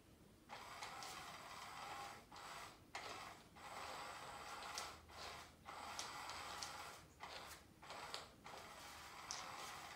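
Small geared motor of an electronic cat toy whirring under its fabric cover, starting about half a second in and running in irregular spurts with short pauses between them, with a few faint ticks.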